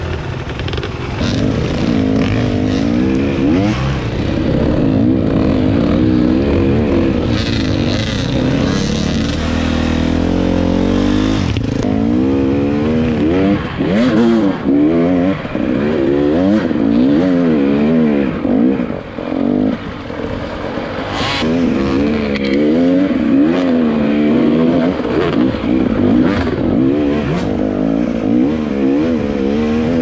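Two-stroke KTM 300 EXC enduro motorcycle engine being revved up and down over and over as the throttle is worked, its pitch rising and falling every second or two, with occasional sharp knocks.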